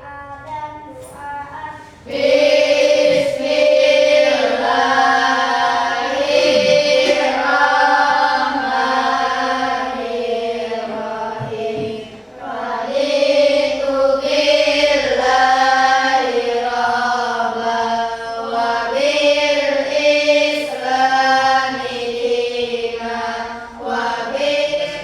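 A group of schoolchildren singing a song together in unison, with a short break in the middle.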